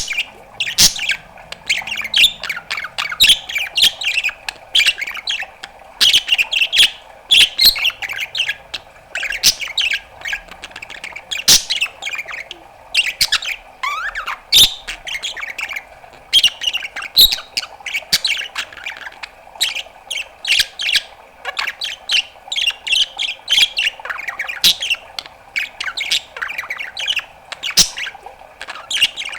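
Pet budgerigar chattering: a fast, unbroken string of short chirps, clicks and harsher calls, with only brief pauses.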